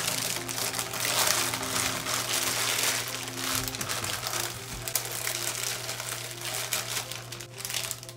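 Plastic wrapping of a fresh ramen multi-pack crinkling and rustling irregularly as it is handled and opened. The noodle packets and soup sachets are pulled out of it.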